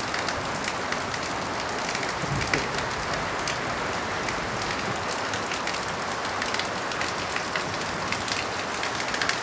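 Steady rain on a tin roof: an even hiss dotted with many small, sharp drop ticks.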